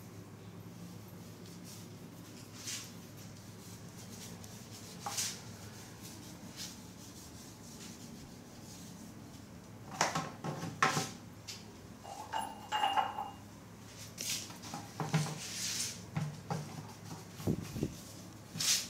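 Faint room hum for about ten seconds, then scattered rubs, scrapes and small knocks as a hand wipes over and handles a ceramic toilet bowl, with a short squeak a little after the middle.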